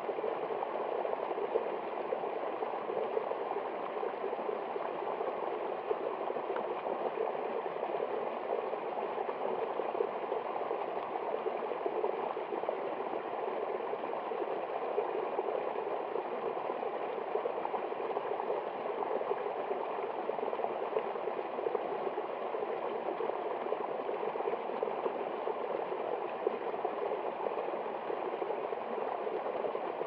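A small woodland stream rushing and splashing down a steep, narrow muddy channel: a steady, even rush of water that never lets up.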